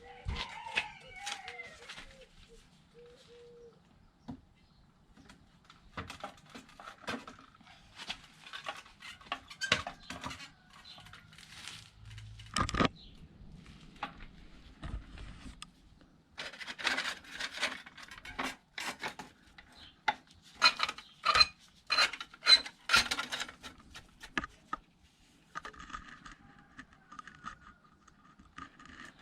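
Metal tools and parts clinking, tapping and knocking in irregular bunches, with some ringing metallic clinks and a few sharper knocks. There is a short squeal with a sliding pitch near the start.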